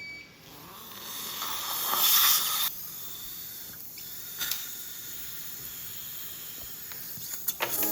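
Dental surgical suction hissing, swelling to its loudest about two seconds in, then dropping sharply to a steadier, quieter hiss.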